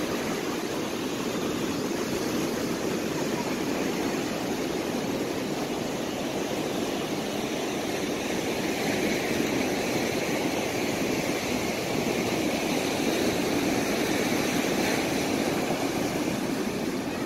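Ocean surf washing onto a sandy beach as a steady rushing noise, a little louder in the second half.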